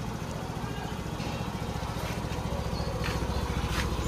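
Suzuki Avenis scooter's single-cylinder engine idling with a steady, even beat, growing a little louder toward the end.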